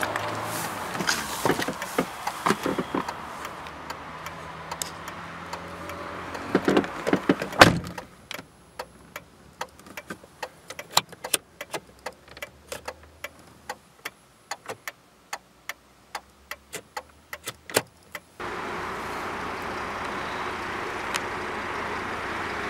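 Handling knocks inside a Volkswagen Passat B5, then a car door shuts with a heavy thump about eight seconds in. With the door closed the background goes quiet, and a long, irregular run of sharp clicks follows as cabin buttons and switches are pressed. About eighteen seconds in the sound cuts to a steady outdoor hiss.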